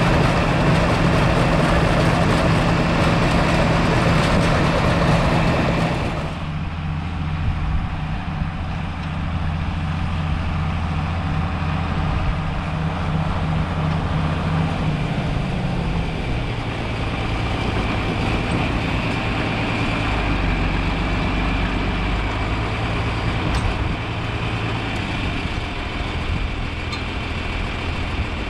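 Tractor engine running steadily, with a loud rushing noise over it that stops about six seconds in, where the engine note drops; the engine speed shifts again a couple of times later on.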